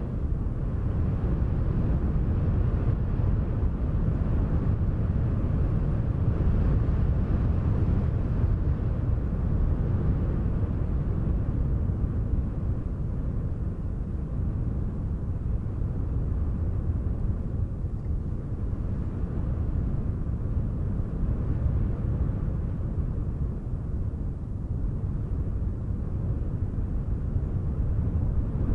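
Wind blowing steadily, a low rumbling rush that swells and eases a little.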